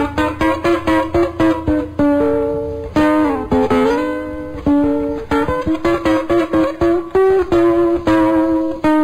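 Guitar playing the instrumental introduction to a waltz: a run of plucked notes, with a held note that slides down and back up about three seconds in.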